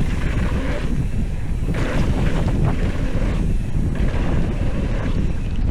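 Wind buffeting a camera microphone during a mountain bike ride: a heavy, steady low rumble with a few brief crunches and rattles mixed in.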